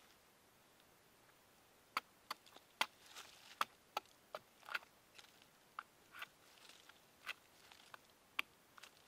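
Large chopping knife hacking into a cashew tree trunk, its blade striking and chipping the wood. A series of sharp, irregular knocks starts about two seconds in.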